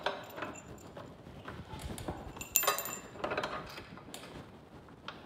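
Scattered knocks and rattles of a M.O.R.E. Hide-A-Step bracket being pried into line for its retaining pin, with one sharp metal clink that rings briefly about two and a half seconds in.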